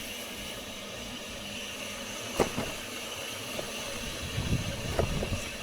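Steady rushing noise of a bicycle rolling downhill with a tailwind, tyres and air passing the action camera, with a sharp click about two and a half seconds in.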